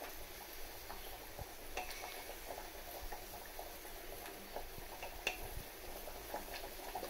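A few light clicks of a steel spoon against a kadai as salt is sprinkled over shredded cabbage and moong dal, over a faint steady hiss of the pan cooking on the stove.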